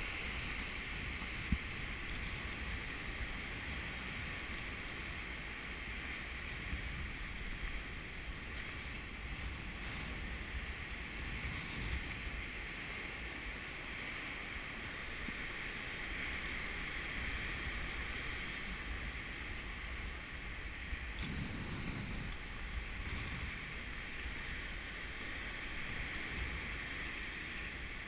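Rough sea surf breaking and washing over rocks, a steady rush of white water, with wind noise on the microphone.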